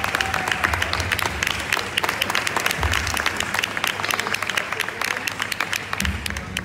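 Audience applauding, many hands clapping at once; the applause stops at the very end.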